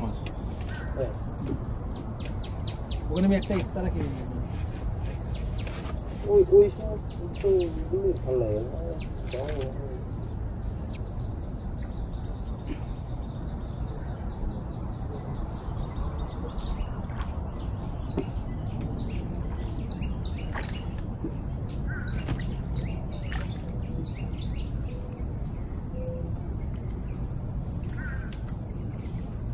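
Mangrove insect chorus, crickets or cicadas, droning on one steady high-pitched note, with scattered short bird chirps.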